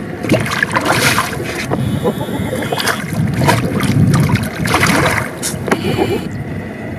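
A hooked snakehead thrashing at the water surface, making a series of irregular splashes, heaviest around the middle.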